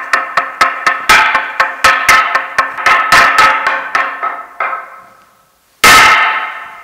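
A monastery semantron (bilo), a hand-held wooden beam, struck with a mallet in a rapid uneven rhythm of about four strokes a second, calling the monks to prayer. The run dies away, and near the end one loud strike rings out and slowly fades.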